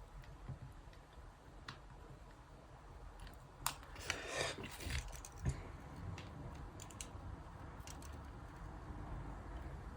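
Small tools and phone parts being handled during a smartphone repair: scattered light clicks and taps, with a short rustling scrape about four seconds in.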